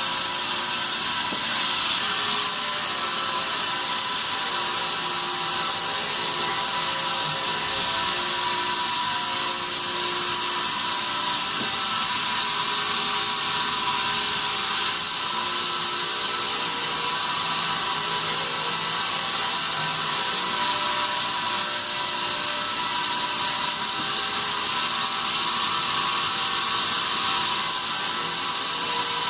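Band sawmill running, its blade cutting pine: a steady, mostly high-pitched machine noise with a faint whine.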